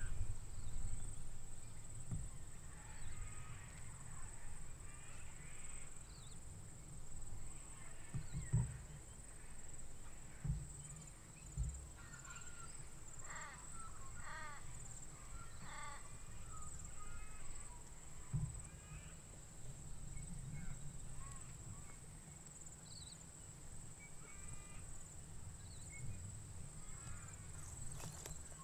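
Faint bird calls, a scatter of short repeated notes, over a low rumble on the microphone, with a few soft knocks.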